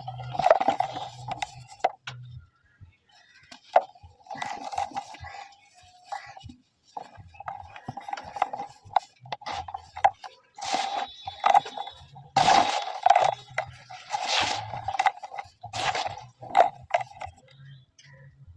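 Dry cement balls being crushed and crumbled, an irregular run of sharp clicks and gritty crunching bursts.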